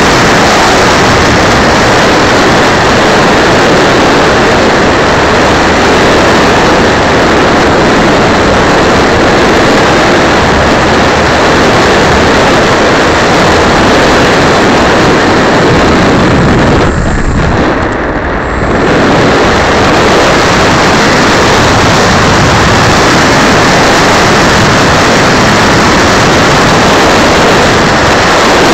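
Loud, steady rush of airflow and electric motor and propeller noise from a small camera riding on an electric RC model plane in flight, overloading its microphone. The noise dips briefly for about two seconds a little past the middle.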